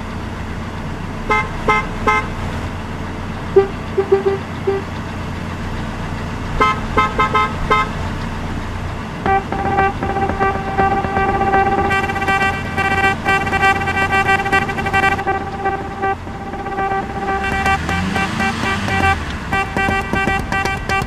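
Car horns honking: short toots in quick bursts for the first several seconds, then a long, almost unbroken blast of honking from about nine seconds in.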